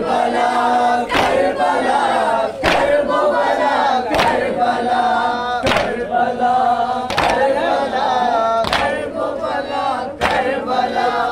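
A crowd of mourners chanting a noha together in unison, with a loud group strike of hands on chests (matam) in time about every one and a half seconds.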